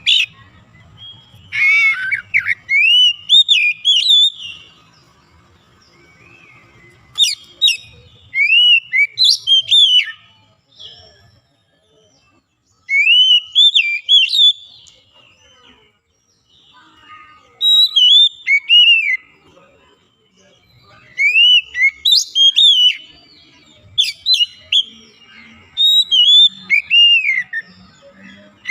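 Oriental magpie-robin singing: bouts of loud whistled notes that slide up and down, each bout two to three seconds long, about seven bouts with short pauses between them.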